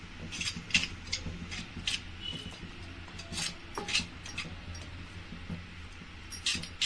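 Scattered light clicks and taps of kitchen utensils, roughly one or two a second, over a low steady hum.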